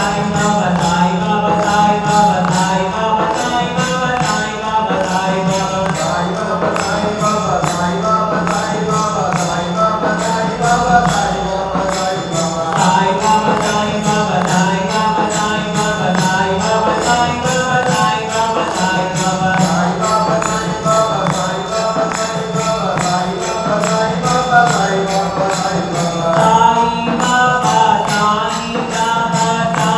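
Devotional Hindu chant music: a melodic chanted line over a steady low drone, with a regular jingling percussion beat.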